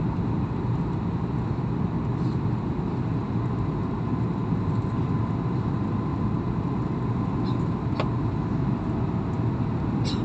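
Steady drone of an airliner cabin on approach to landing: engine and airflow noise, with a faint steady hum and a couple of small ticks near the end.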